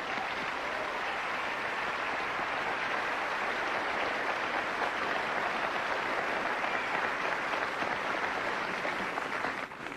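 Studio audience applauding, a steady dense clapping that dies down near the end.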